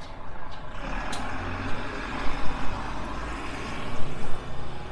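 A heavy road vehicle passing close by: a low engine rumble and tyre hiss swell about a second in and ease off after a few seconds, over general street noise.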